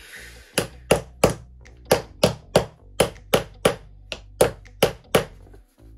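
Spanner working a clamp-type battery terminal on a car battery post, giving a dozen or so sharp metal clicks at about three a second, as the terminal is tightened down.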